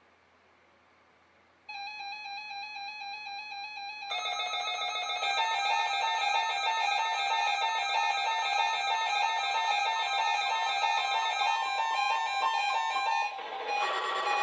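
Several weather radios sounding their electronic alert beeps at once. One starts beeping about two seconds in, several more join louder about four seconds in, and the mix of tones shifts briefly near the end.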